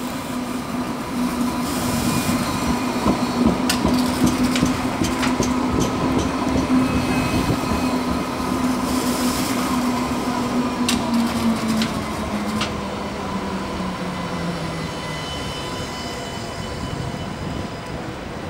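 Coupled Alstom Citadis 305 trams passing close at low speed: a steady hum of the traction drive that drops in pitch about two-thirds of the way through as the tram slows, over rolling noise with scattered clicks from the running gear.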